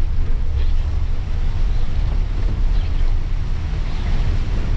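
Steady low rumble of a coach's engine and tyres on a wet, flooded road heard from inside the cab, with rain on the bodywork and the windscreen wipers swishing about once a second.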